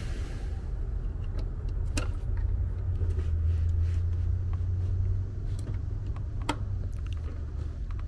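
A low rumble that swells about three seconds in and eases off after five, with a few sharp clicks as multimeter test probes are handled and set on a three-pole contactor's terminals.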